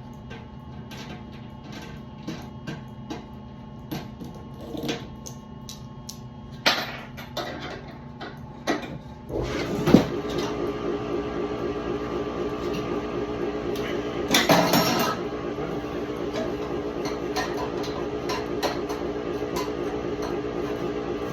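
Scattered metallic clicks and knocks of parts being handled, then about nine seconds in a furnace motor switches on and runs steadily with a fast, even pulsing hum.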